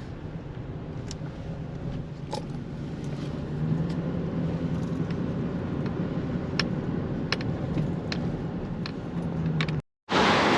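Ford Econoline van driving: a steady engine and road hum that grows a little louder about a third of the way in, with scattered sharp clicks and rattles. Near the end the sound cuts out for a moment and a louder rushing noise takes over.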